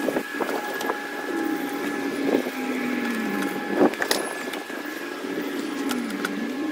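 A motor running steadily in the background, its pitch sagging and rising a few times, with several sharp clicks over it, the loudest about four seconds in.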